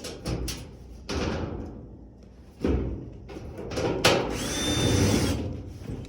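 Clunks and rattles of a dryer's sheet-metal back panel and tools being handled, with a sharp knock about four seconds in followed by a short whir of a cordless drill.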